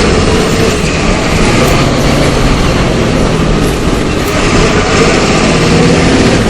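The MWM 6.12 TCAE six-cylinder turbodiesel of a Volksbus 17.210 EOD bus, running loud and steady.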